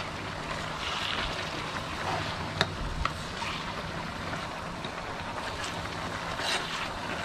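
Mala stir-fry of meat, cabbage and enoki mushrooms sizzling in a large wok over a gas burner, stirred with a metal spatula scraping the pan. Two sharp clinks of the spatula against the wok come close together about two and a half seconds in.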